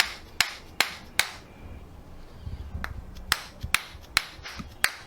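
Two runs of four sharp clicks, each about half a second apart, with a pause of about two seconds between the runs.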